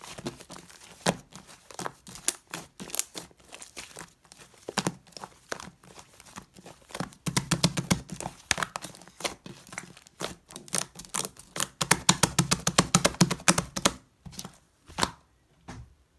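Slime being squeezed, poked and stretched by hand, giving fast runs of wet crackling and popping clicks that come in bursts. It thins out to a few last pops near the end.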